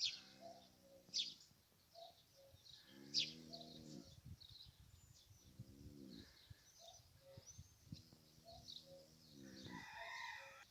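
Colt snoring in his sleep, a low rasping snore that comes back about every two and a half seconds, four times. Small birds chirp throughout.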